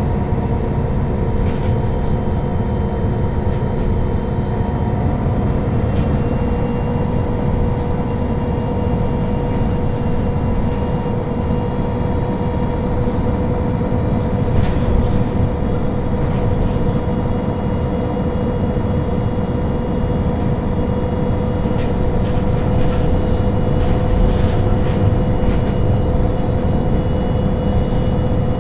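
MAN NL 263 city bus under way at a fairly steady pace: a dense low engine rumble with a steady whine that creeps slightly upward in pitch, and some light rattles toward the end.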